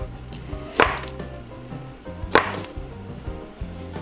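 A crinkle-cut knife chopping down through a soft filled dough roll and striking the wooden worktop, twice, about a second and a half apart.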